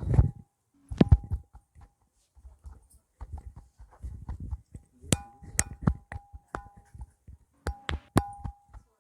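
A series of sharp smacks or knocks: one about a second in, a quick cluster of four near the middle and two more near the end, several followed by a short ringing tone, with faint rustling and shuffling between them during hands-on bodywork.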